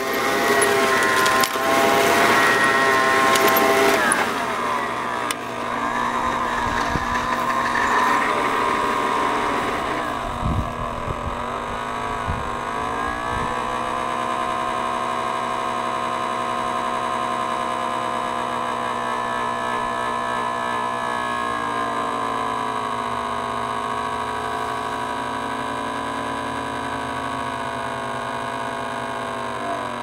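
Eureka Edge Kleener upright vacuum cleaner's motor running, at first with a rough, hissy edge while it is pushed over grass, then settling to a steady hum once it stands still. Its pitch wavers for a few seconds near the middle.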